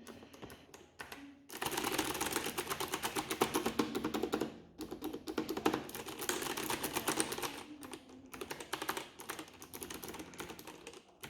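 Fast typing on a Fantech MK885 mechanical keyboard with clicky blue switches, the keys clattering in quick runs, with a short break about five seconds in and lighter, more spaced keystrokes near the end.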